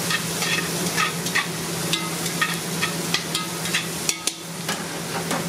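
Diced vegetables, bacon and tomatoes sizzling in a large metal pot while metal tongs stir them, clinking and scraping against the pot about twice a second.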